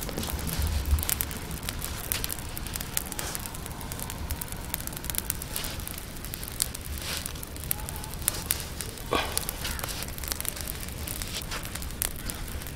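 Coconut-shell embers burning under a grill, with irregular crackles and pops over a steady hiss.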